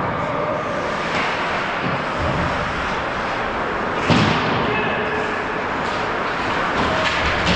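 Ice hockey game play in an indoor rink: skates scraping and sticks on the ice, with a sharp hit about four seconds in that echoes in the arena.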